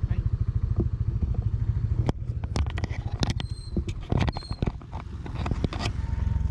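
Motor scooter engine idling with a fast, even beat. From about two seconds in, sharp clicks, knocks and scrapes of handling close to the microphone cut across a less even low rumble.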